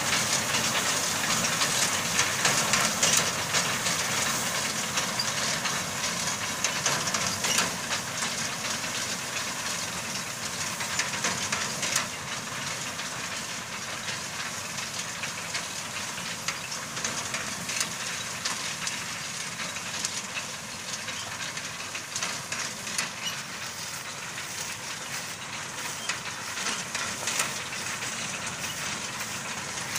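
Tractor-mounted reaper cutting wheat: the tractor engine running under a steady hiss and fine clatter of the cutter bar and cut stalks. It is loudest in the first dozen seconds, then quieter.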